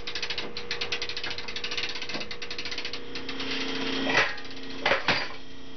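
A hinged metal-framed bunk being swung and set into a new position, giving three sharp knocks about four and five seconds in. A steady fast rattle runs underneath, with a faint held hum.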